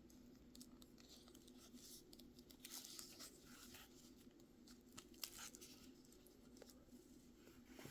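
Faint handling noises: soft rustling of a fabric pouch with scattered small clicks and taps as gear is moved around in it.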